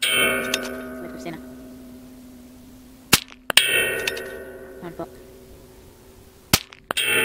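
.22 rimfire rifle shots, each followed about half a second later by the ringing clang of a hanging steel target plate being hit at 300 yards. Three clangs in all, the shots coming about three and a half seconds apart, each ring dying away slowly.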